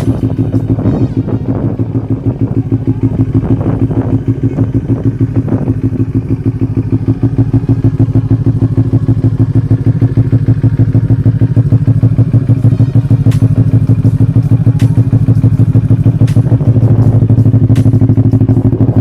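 CFMOTO NK400/GT400 parallel-twin engine idling through an aftermarket exhaust muffler: a steady, pulsing rumble that grows a little louder about seven seconds in.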